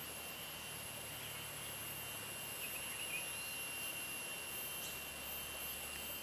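Faint outdoor ambience: a steady, high-pitched insect drone, with a few faint chirps over it.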